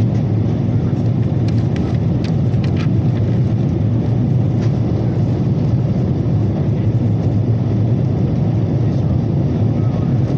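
Steady low rumble of engines and rushing airflow heard inside an airliner cabin on the approach to landing. A few faint ticks sound in the first three seconds.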